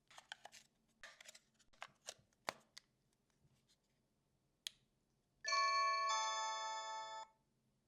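Light rustling and clicks of the packaging being handled, then a sharp click, followed by an electronic two-note doorbell chime. The chime is the loudest sound; its second note joins about half a second after the first, and it stops after under two seconds.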